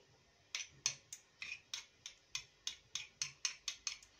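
Metal spoon scraping and tapping crushed garlic off a metal garlic press: a quick run of light clicks, about four a second.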